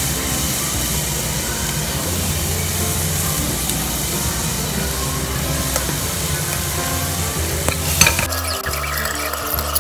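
Wet soaked rice and vegetables sizzling in hot oil in a pressure cooker as the rice is tipped in from a mesh strainer and stirred with a steel spatula. The spatula clinks sharply against the pot about eight seconds in.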